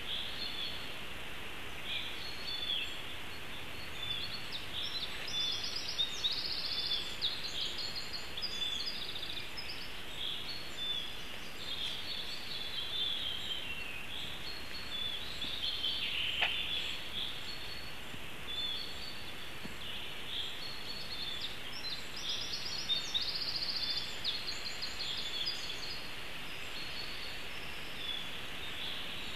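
Woodland songbirds singing, with many short high calls and one bird's song phrase heard twice, over a steady hiss.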